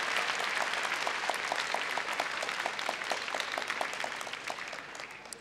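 Indoor show audience applauding, with regular claps about four or five a second standing out from the general clapping. The applause dies away toward the end.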